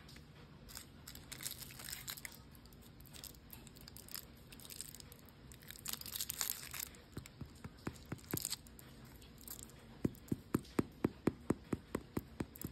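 Paper bagel liner crinkling and rustling as a baked bagel is picked up and handled. Near the end, a finger taps on the bagel's crust, about four taps a second.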